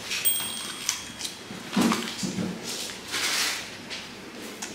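Close-mic eating sounds: a man chewing and biting into seaweed-wrapped brown rice and chicken breast, with small wet mouth noises. A short hummed murmur comes about two seconds in.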